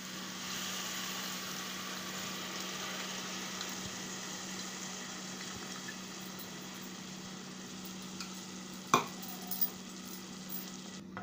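Onion and tomato mixture sizzling in a steel pot as tamarind extract is squeezed in by hand; the sizzle swells about half a second in and then slowly fades. A single sharp knock about nine seconds in.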